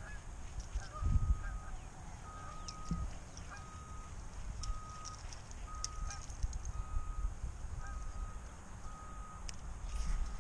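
A steady beep repeating evenly about once a second, each beep about half a second long, over low wind rumble on the microphone with a thump about a second in.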